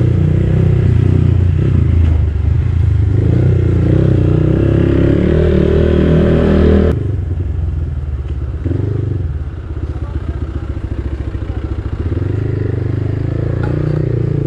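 CrossX 250SE motorcycle engine running at low speed on the move. About halfway through the sound drops abruptly to a quieter, slower pulsing putter at low revs.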